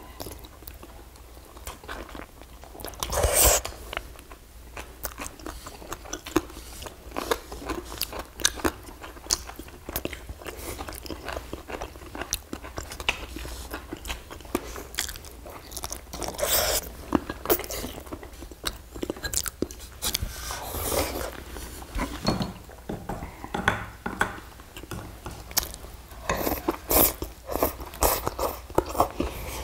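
Close-miked mukbang eating sounds of two people eating rice, grilled rockfish and side dishes: chewing, smacking and crunching, with many short clicks. There are several louder bursts, the loudest about three seconds in and a busy stretch near the end.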